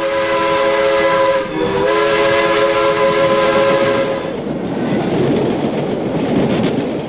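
Train whistle blowing a chord of several tones for about four seconds, dipping briefly in pitch about one and a half seconds in, over the running noise of a moving train. The running noise then carries on alone.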